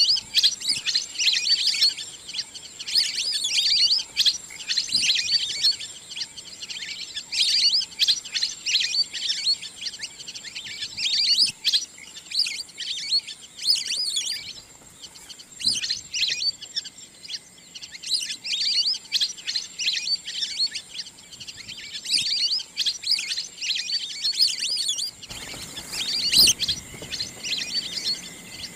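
Recorded wild duck calls, used as a hunting lure: high-pitched chirping, twittering whistles in bouts every second or two, with a faint steady high tone underneath and a brief rush of noise near the end.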